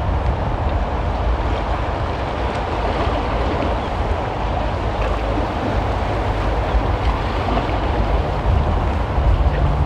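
Waves washing and breaking among rocks at the water's edge, with wind buffeting the microphone as a steady low rumble.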